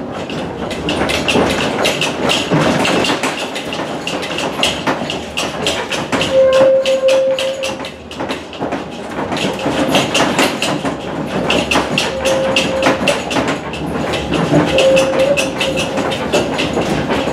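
Tatra tram running over badly worn track, its wheels and body clattering and rattling continuously. A steady squeal from the wheels on the curves comes in about six seconds in, and more faintly twice near the end.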